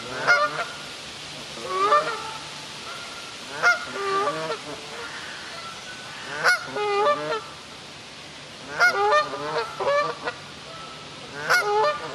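Canada goose honking repeatedly, in short runs of harsh honks every second or two.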